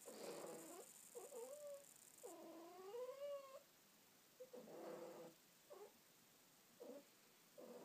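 A long-haired cat meowing several times. The longest meow, about three seconds in, rises and falls in pitch; shorter, briefer calls follow.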